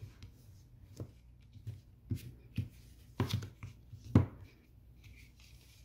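Bone folder worked along score lines in cardstock: soft scraping and paper rustling with a few light knocks against the table, the sharpest a little past four seconds in.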